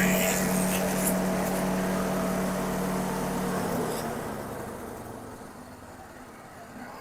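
Grass chopper machine running empty with a steady hum, then winding down: about four seconds in its pitch slides down and the sound fades as it is switched off and spins down.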